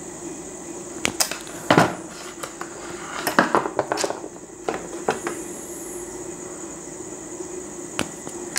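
Scattered light clicks and knocks of hands handling wire against a plastic switchboard base and its terminals, with a cluster around three to four seconds in and the loudest knock about two seconds in.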